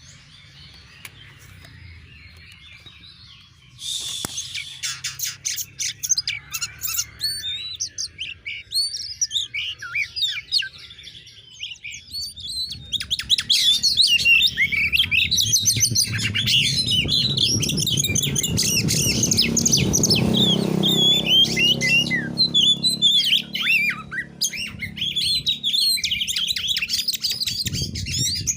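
Oriental magpie-robin (kacer) singing a rapid, varied song of sharp chirps and whistling notes. It is faint at first, turns loud about four seconds in, and grows denser and fuller about halfway through. A low rumble runs under the song in the middle.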